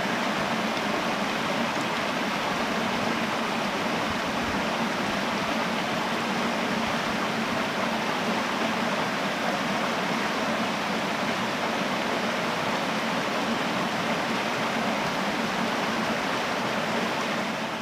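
Mountain stream rushing over rocks and small rapids: a steady, even rush of water.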